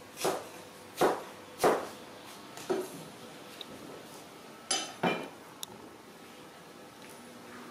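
A series of separate sharp knocks and clinks, about six in all, irregularly spaced, one near the middle ringing briefly.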